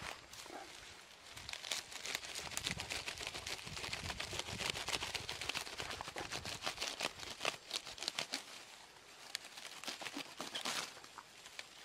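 Grass and dry weeds being cut with a knife and torn up by hand: a dense run of rustling, tearing and crackling, busiest in the middle and thinning out near the end, with one last louder crackle.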